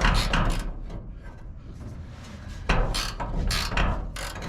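Metal clunks and scraping as a truck hood is worked free of its hinge on one side, in two bouts: a short one at the start and a longer, louder one from a little under three seconds in.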